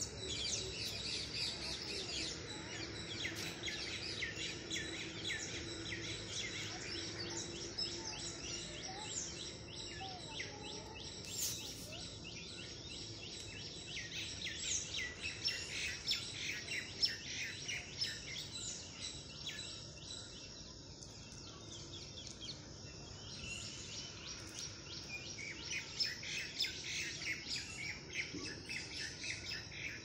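Many birds chirping and singing at once, a dense chorus of short high chirps that thins out for a few seconds past the middle.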